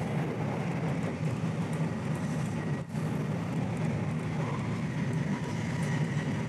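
JR Special Rapid Service electric train running, heard from inside the carriage: a steady low rumble of the moving train, with a short break about three seconds in.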